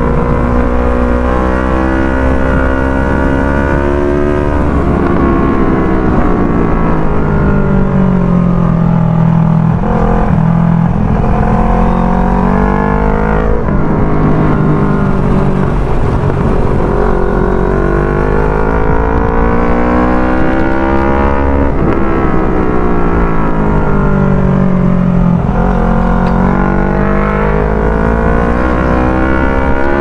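CFMOTO NK400's parallel-twin engine running through a Yoshimura Alpha R77 aftermarket exhaust, heard from the rider's seat on the move. The engine note climbs under throttle and drops back several times as the rider accelerates, eases off and changes gear.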